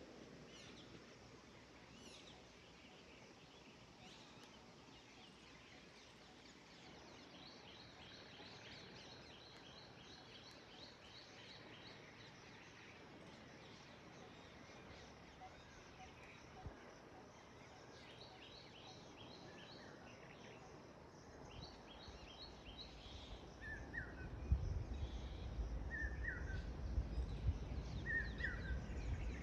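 Birds singing in faint outdoor ambience: quick trills of rapidly repeated high notes, then a short call repeated every second or two near the end. A low rumble rises under it in the last few seconds.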